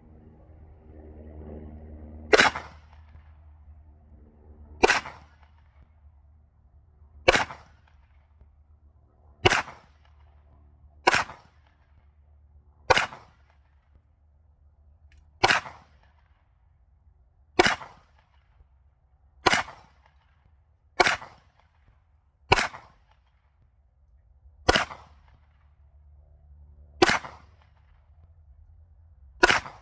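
Pistol fired at a slow, deliberate pace: fourteen single shots, one about every two seconds.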